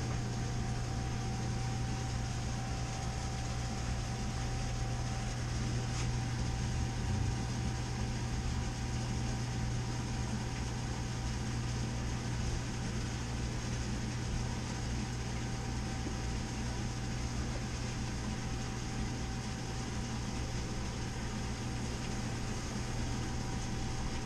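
Steady machine hum from a PCB batch washer and its rinse-water recycler running: a constant low drone with a faint steady whine above it.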